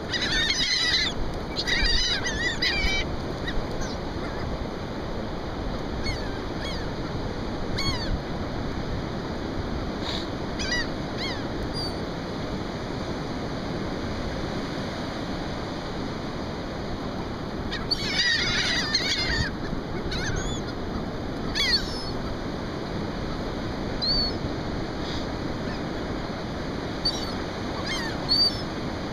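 A flock of laughing gulls calling as they hover and squabble over thrown food: bursts of overlapping squawking calls at the start and again about 18 seconds in, with single calls scattered between, over a steady wash of surf and wind.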